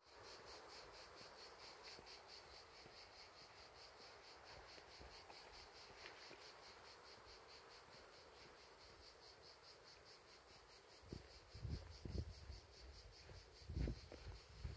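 Faint, steady chorus of insects chirring in a quick even pulse, about four beats a second, over a constant high hiss. Near the end come a few low thumps.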